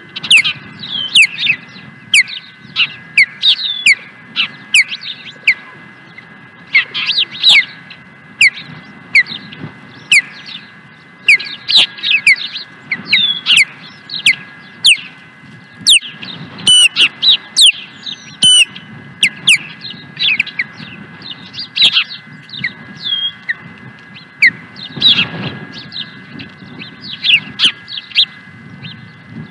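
Ospreys calling: runs of short, high, down-slurred chirps, repeated again and again, over a faint steady whine.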